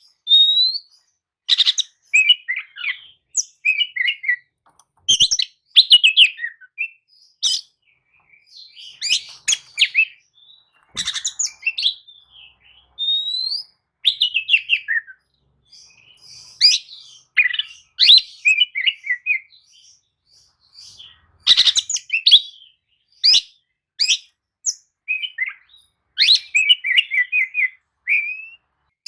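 Oriental magpie-robin (kacer) singing: a run of varied whistled and chattering phrases separated by short pauses.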